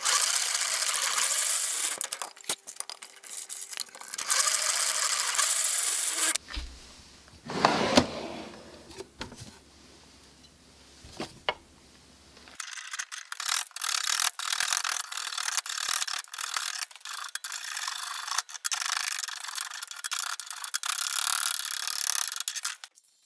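A drill press boring into a wooden board, in two bouts. After a quieter stretch with a single knock, a hand-held edge tool shaves wood clamped in a vise in quick, repeated scraping strokes for the second half.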